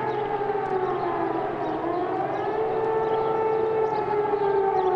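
Air-raid sirens wailing across a city, their tones slowly dipping and rising in pitch, sounding the alert for an air attack.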